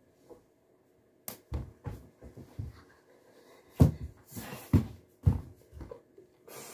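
Irregular thumps and knocks, loudest about four to five seconds in, from someone moving about and bumping the desk close to the microphone.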